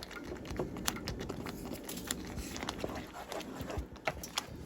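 Spoon or spatula stirring thick paneer gravy in a pan, with irregular light taps and scraping.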